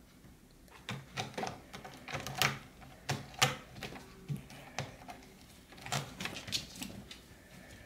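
Two cats scuffling and play-fighting: irregular knocks, scuffs and claw clicks on a laminate floor and against a sisal scratching post, starting about a second in, with the loudest knocks around two and a half and three and a half seconds in.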